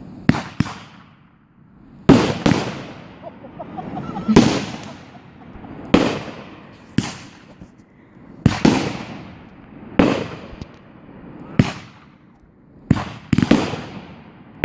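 Fireworks going off in a series, a sharp bang every one to two seconds, some in quick pairs, each trailing off in a long echoing rumble.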